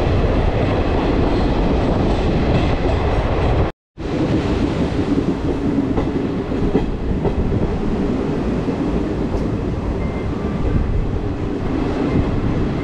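Passenger train running along the track, heard from an open coach doorway: steady noise of wheels on rail. The sound drops out for a moment about four seconds in, at a cut from a rock tunnel to open track.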